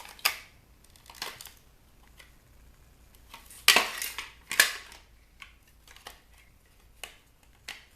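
Hard plastic clacks and knocks as the bug zapper's plastic housing is handled and pulled apart, with two louder clacks close together about halfway through.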